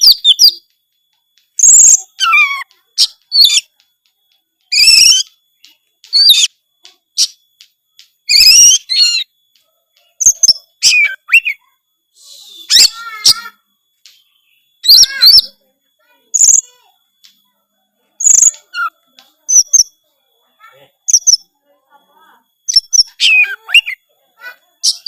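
Oriental magpie-robin (kacer) singing loudly in short, varied whistled phrases with quick pitch slides, separated by brief pauses. This is full song packed with mimicked notes of other birds ("isian").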